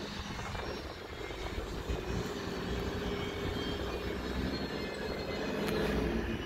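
Distant FS D.245 diesel shunting locomotive's engine running with a steady drone, its pitch dipping slightly near the end.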